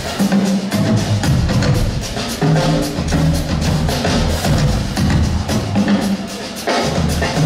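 Two Gretsch drum kits played together live in a drum duet: rapid strikes on toms, snare and cymbals over deep, pitched low notes.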